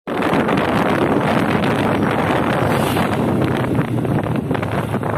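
Loud, steady wind noise buffeting the microphone of a camera carried on a moving motorcycle.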